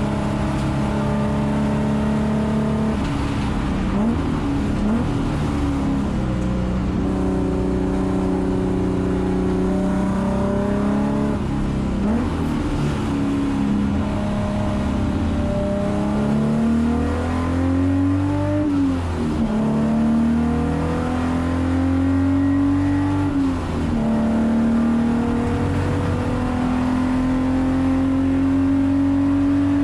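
Alfa Romeo GTV6 race car's Busso V6 engine under hard driving, heard from inside the cockpit. Its pitch climbs steadily in each gear and drops sharply at the upshifts, about 19 and 23 seconds in, with quick rises and falls around four to six seconds in.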